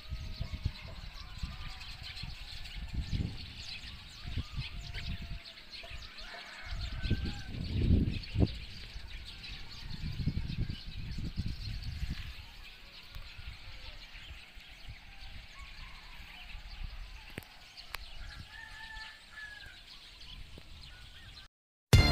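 Chickens and other birds calling in the background, with irregular low rumbling on the microphone. The sound cuts off just before the end.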